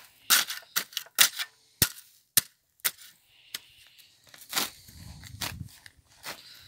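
Pointed metal spade digging into lumpy soil and turf: about nine sharp knocks and scrapes as the blade strikes the earth over the first three and a half seconds, then a longer crunching scrape as it is pushed in, about four and a half seconds in.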